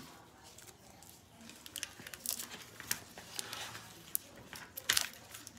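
Plastic toffee wrapper being crinkled and twisted open by hand: irregular crackles starting about a second and a half in, the sharpest near the end.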